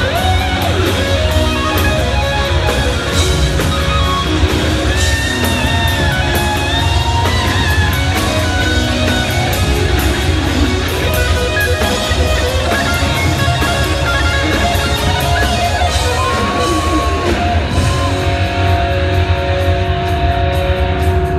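Live rock band playing at a steady, loud level, with the guitar to the fore: sliding, bending lead notes over drums, cymbals and bass.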